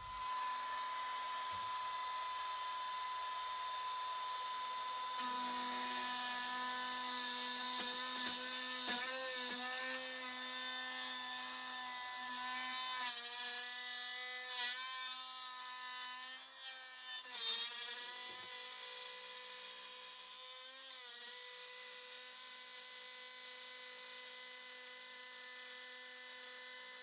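Electric router running at high speed and cutting a groove in the wooden box sides for the base panel, its whine dipping in pitch several times as the bit bites into the wood and recovering.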